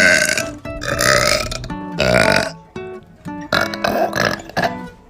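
A girl burping loudly over and over: three long burps in quick succession, then after a short pause a faster run of shorter burps. Background music plays underneath.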